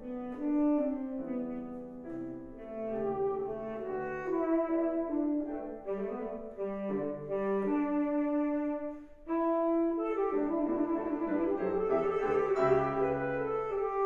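Tenor saxophone playing a slow, sustained melodic line with piano accompaniment, with a brief pause about nine seconds in before the music picks up again.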